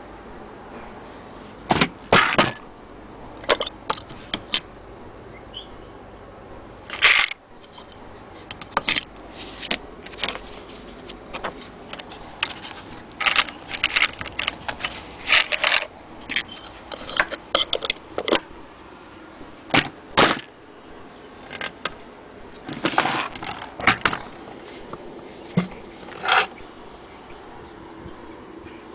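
Irregular clicks, knocks and scrapes, some sharp and loud, from a gloved hand handling the metal parts of an antique Singer 99K hand-crank sewing machine. There is no steady running rhythm.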